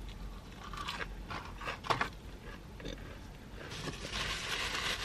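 Close-up chewing of a crispy breaded chicken tender: a few crunchy bites in the first two seconds, then steadier chewing noise.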